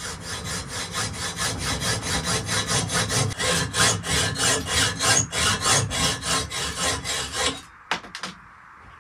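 Hand hacksaw cutting a metal bracket plate clamped in a vise, in quick, even back-and-forth strokes. The sawing stops about a second and a half before the end, followed by a couple of light knocks.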